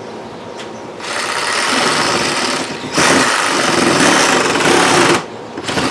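A small motor running loud and steady, softer for the first second, stopping briefly about five seconds in, then starting again.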